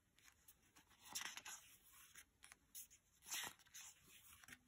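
Faint paper rustle of a glossy album photobook's pages being turned and handled, with two clearer swishes about a second in and a little past three seconds in.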